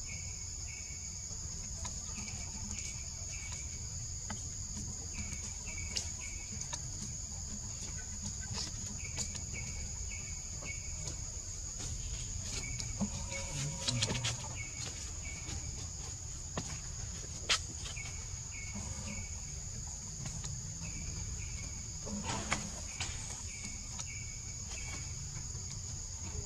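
Jungle insect chorus: a steady high-pitched insect drone with a cricket-like insect chirping in short repeated calls, over a low rumble. A few brief louder sounds break in about halfway through and again near the end.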